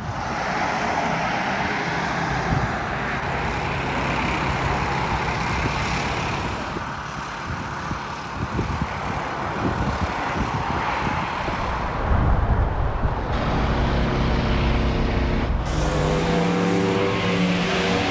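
Motorway traffic: cars and trucks passing in a continuous rush, with a louder low engine rumble about twelve seconds in and a steady engine drone over the last few seconds.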